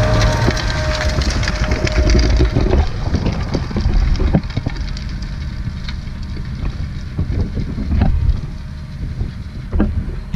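Massey Ferguson tractor pulling a disc harrow through dry soil: the discs crunch and crackle through the clods with scattered clicks over a low engine hum. The sound eases off in the second half as the rig moves away.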